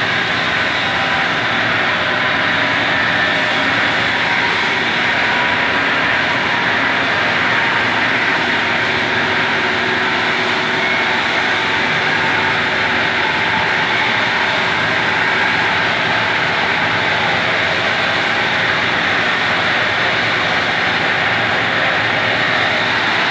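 Metal lathe running steadily with a steel shaft spinning in its chuck: a constant loud mechanical noise with a few faint steady tones.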